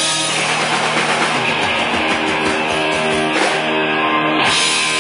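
Live rock band playing loud, with electric guitar to the fore over bass and drums; from about two seconds in, held chords ring steadily.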